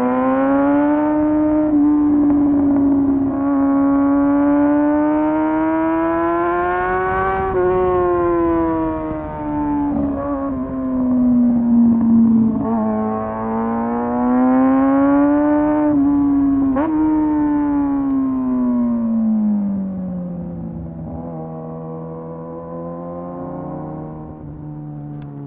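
Motorcycle engine running under way, its pitch rising and falling slowly over several seconds as the throttle is worked, then dropping lower and quieter near the end.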